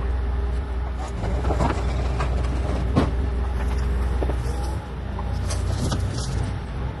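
Bobcat E40 compact excavator's diesel engine running steadily, with scattered sharp knocks, the loudest about three seconds in.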